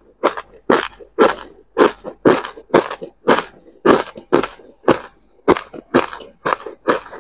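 A mouthful of crushed ice being chewed, close to the microphone: loud crisp crunches at a steady pace of about two a second.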